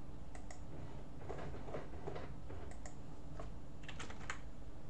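Typing on a computer keyboard: a few scattered keystrokes, a short run of them about four seconds in, over a steady low background hum.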